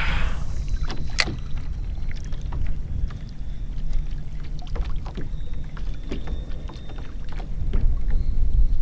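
Water lapping against a fishing kayak's hull, over a steady low rumble, with scattered light taps and clicks.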